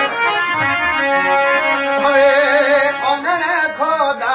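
Rajasthani folk song: a voice singing wavering, ornamented lines over a steady held instrumental drone.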